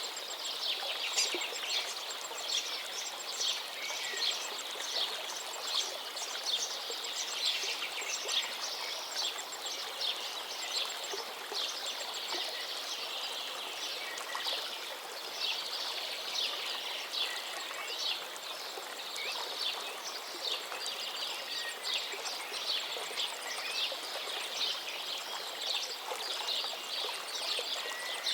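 Many songbirds chirping and trilling continuously over the steady rush of a gently flowing forest river.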